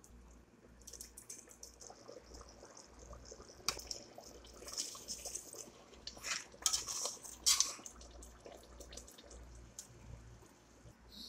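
Metal spoon stirring rice into broth in a stainless steel pot: wet sloshing, with the spoon scraping and clinking against the pot in short irregular bursts, loudest a few times in the middle.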